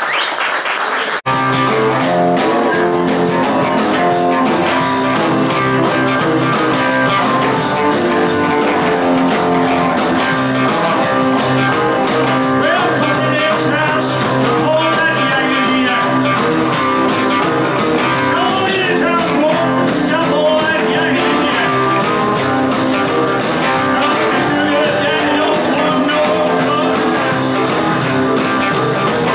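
Live band playing rock and roll on drums, bass, electric and acoustic guitars and keyboard, with singing. The sound cuts out sharply for an instant about a second in, then the band plays on steadily.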